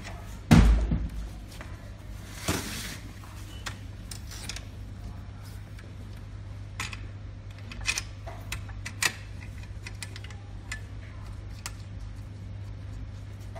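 Handling noise from a pipe inspection camera reel's steel frame and fibreglass push-rod cable: a heavy thump about half a second in, a brief rustle a couple of seconds later, then scattered light clicks and knocks, over a steady low hum.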